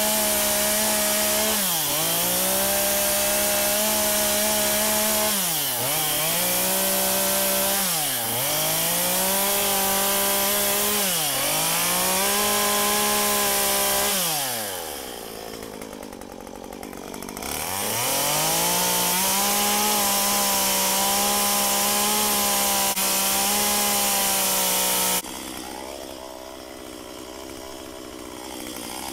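Stihl MS193 C top-handle two-stroke chainsaw carving into a log at high revs. The engine note sags and climbs back several times in the first dozen seconds as the throttle is eased and reopened, falls to a lower speed for a few seconds around the middle, then revs up again. Near the end it drops suddenly to a much quieter low running.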